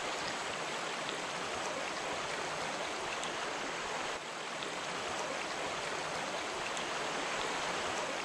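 Shallow, rocky trout creek running steadily over riffles and pocket water, a close, even rush of water.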